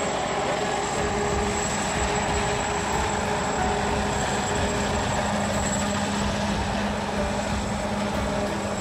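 Sikorsky-Boeing SB>1 Defiant coaxial-rotor compound helicopter with a rear pusher propeller flying by: steady rotor and engine noise with a constant low hum and a thin high whine.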